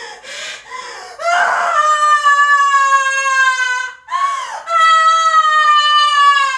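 A woman crying out in anguish: a few short sobbing gasps, then two long high-pitched wailing screams, each sagging slightly in pitch as it is held.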